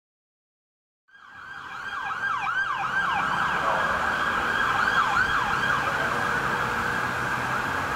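A 2022 Spartan/Toyne pumper fire engine's bell rings in a steady, sustained tone together with its siren's quick, repeating pitch sweeps. The sound comes in about a second in and swells over the next second.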